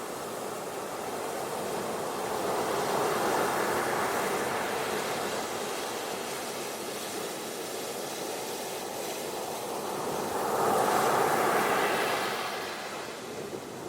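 Ocean waves washing onto a beach, a steady surf hiss that swells twice as waves break, once about three seconds in and again near the end.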